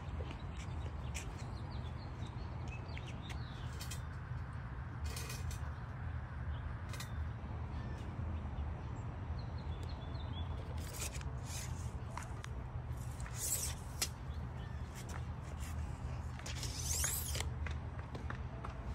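Outdoor background: a steady low rumble with a few short, high chirps and light clicks scattered through it, the loudest about two-thirds of the way in and again near the end.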